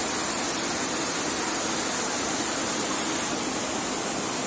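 Fast-flowing floodwater rushing down a street, a steady, unbroken rush of water noise.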